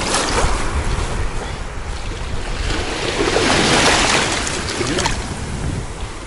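Small sea waves washing over shallow water and wet sand, one wave swelling in and breaking around the feet about three seconds in, with wind buffeting the microphone.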